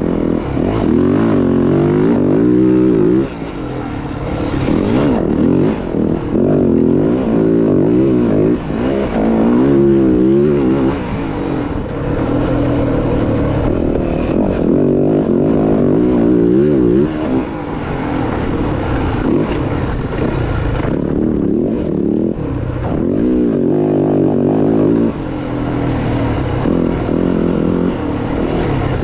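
Dirt bike engine being ridden hard, its pitch rising and falling over and over as the rider works the throttle and shifts.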